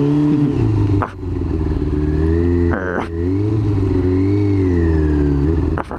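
Yamaha YZF-R6's inline-four engine being revved, its pitch swinging up and down, with two short breaks: about a second in and just before three seconds in.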